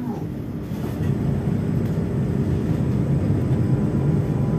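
Z 20500-series (Z2N) double-deck electric multiple unit standing at a platform, its onboard equipment running with a steady low hum and rumble and a few faint held tones.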